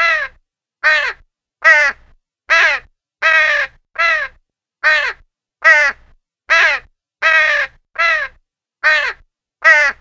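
A gull calling over and over: about fourteen short, harsh cries, each falling in pitch, coming a little faster than one a second with short silences between.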